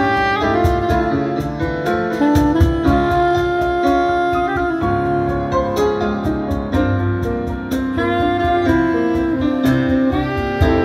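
Live jazz: a soprano saxophone plays a melody over grand piano chords, with a steady hand-struck cajon beat underneath.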